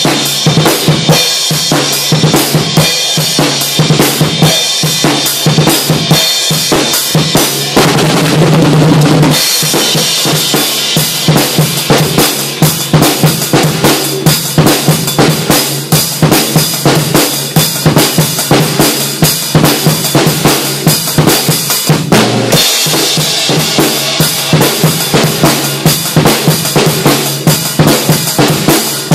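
Acoustic drum kit played hard in a fast, steady beat: kick drum, snare and cymbals struck many times a second. A sustained cymbal wash comes about eight seconds in, and the beat breaks briefly about twenty-two seconds in.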